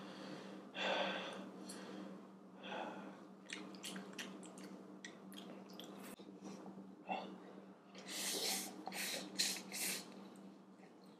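A man breathing hard with sharp gasps and huffs from the burn of extremely spicy Korean fire noodles. Near the end comes a run of loud, hissing slurps as he sucks noodles from the cup.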